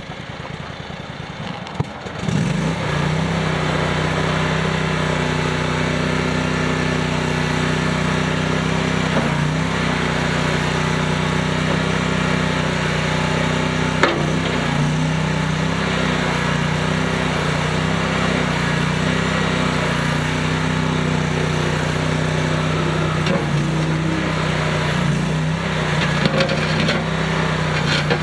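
Land Hero E 232DV mini skid steer's engine starting about two seconds in, then running steadily at an even speed, with one sharp knock about halfway through.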